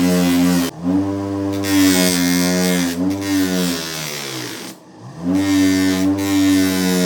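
Electric power tool, such as a grinder or wire-wheel motor, running with a steady hum and a hiss of grinding. Its speed dips briefly twice under load. About four and a half seconds in it winds down almost to a stop, then spins back up.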